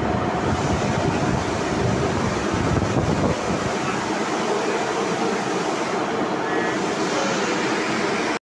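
Metal lathe running with its chuck spinning, a steady mechanical noise that cuts off abruptly at the end.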